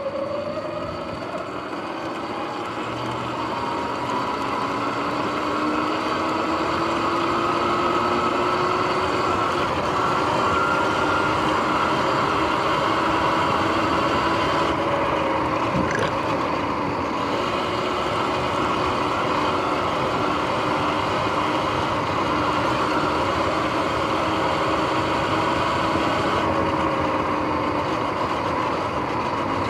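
Sur-Ron X electric dirt bike under way: a whine from its motor and drivetrain rises in pitch as it speeds up over the first several seconds, then holds steady, over tyre and wind rush. By the owner's account the bike's bearings were noisy at this point.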